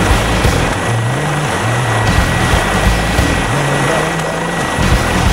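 Helicopter running close by: a steady loud rotor and engine noise with a thin, constant high whine.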